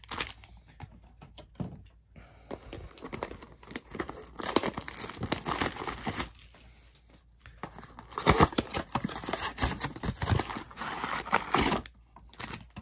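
Sealed trading-card packs and their cardboard blaster box being handled and opened: crinkling of the plastic pack wrappers and tearing, in irregular bursts with short pauses.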